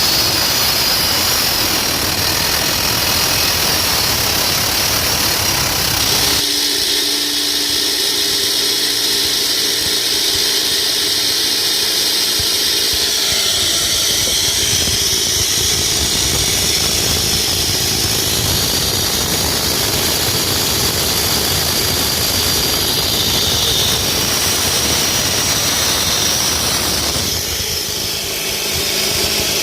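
Concrete cutting machine running steadily under load, a loud harsh high-pitched hiss with a motor underneath. The sound changes abruptly about six seconds in, losing its low rumble, and shifts again near the end.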